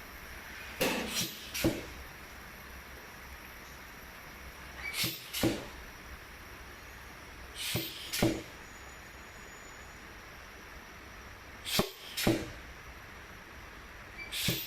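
Face mask ear-loop welding machine at work: short sharp welding strikes in pairs about half a second apart, a pair every three to four seconds, over a steady low machine hum.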